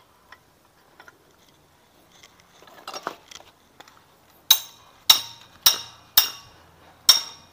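Hammer striking metal parts of a scooter's CVT assembly: a few faint clinks, then five sharp ringing blows about half a second apart, starting a little past halfway.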